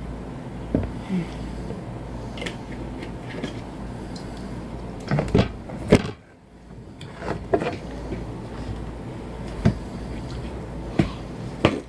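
Scattered short clicks and knocks of things being handled at a table, over a steady low hum that cuts off about six seconds in.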